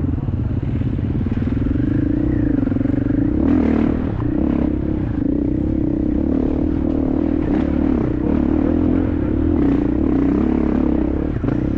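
Motorcycle engine running at fairly steady revs while riding along, with occasional clatter.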